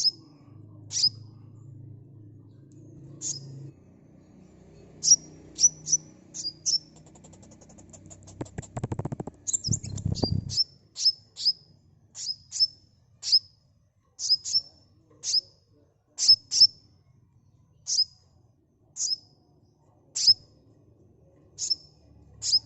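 Sunbird calling: a string of sharp, high, down-slurred chirps, some single and some in quick runs of two to four, with a fast rattling trill about eight seconds in. A short low rumble comes about nine to ten seconds in, under a faint low hum.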